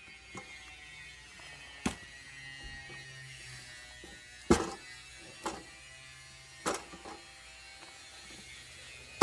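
Several short wooden knocks, the loudest about four and a half seconds in, as sawn oak firewood rounds are moved and set down between saw cuts, over a faint steady mechanical hum.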